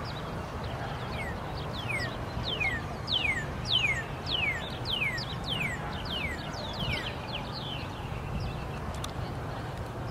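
A series of about a dozen whistled animal calls, each sliding down in pitch, about two a second, growing louder toward the middle and then fading, over a steady low rumble.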